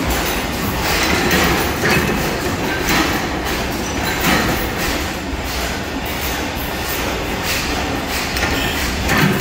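Antique stationary gas engines running together: a steady mechanical clatter with irregular heavier beats about once a second.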